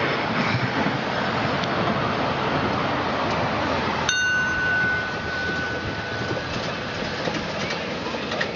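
Ride-on miniature railway trains running past, a steady rolling noise of wheels on track. About four seconds in there is a single bell-like metallic ding that rings on for about two seconds.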